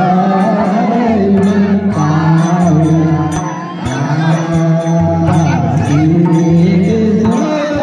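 Men singing a Nepali Magar folk song in the bhailo tradition, a held, chant-like melody, with a madal hand drum keeping a steady beat under it.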